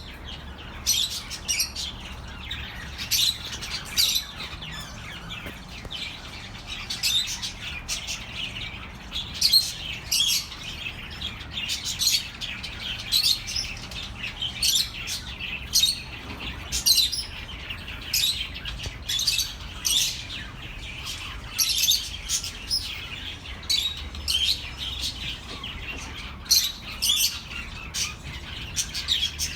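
Budgerigars chirping and chattering, short sharp high calls coming in quick irregular succession, over a steady low hum.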